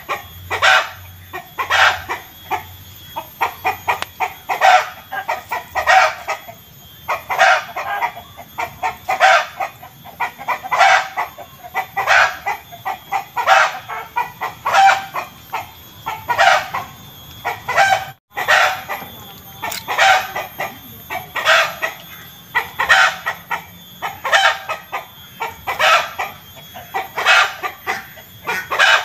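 Chicken cackling 'petok-petok' over and over: bursts of quick clucks about once a second or so, with a momentary dropout partway through.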